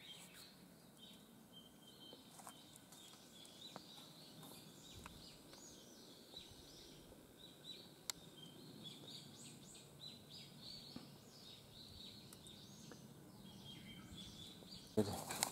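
Faint birdsong: many short chirping calls repeated over a quiet forest background.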